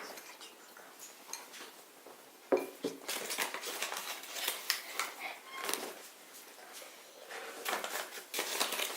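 Spoon knocking and scraping against a bowl as a stiff flour-and-toothpaste dough is stirred: two knocks about two and a half seconds in, then irregular scraping strokes.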